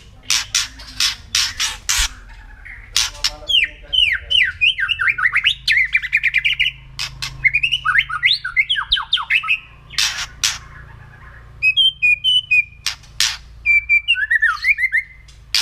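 White-rumped shama (murai batu) giving harsh, rasping 'kretek' calls in quick series, alternating with fast runs of sweeping whistled song notes. This crackling call is the agitated, aggressive kretekan of the species.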